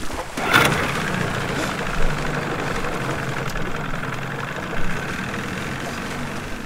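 Boat motor idling steadily while a person splashes and thrashes in the water beside it, with the biggest splash about half a second in.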